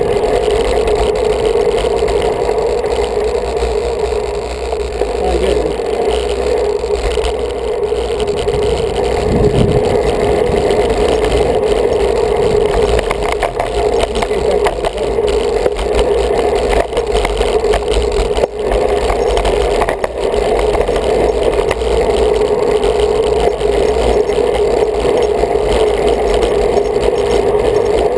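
Steady wind and road noise on a bicycle-mounted camera while riding, with a constant droning hum. There is a brief louder swell about nine seconds in.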